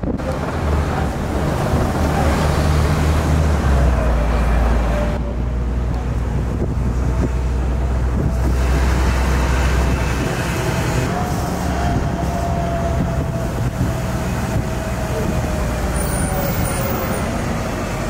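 Open-top double-decker sightseeing bus driving on the road, heard from the top deck: a steady low engine drone under road and air noise, with a faint whine that slowly rises and falls.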